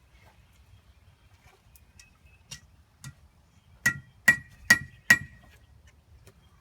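Blacksmith's hammer striking hot metal on an anvil: two light taps, then four hard, ringing blows in quick succession.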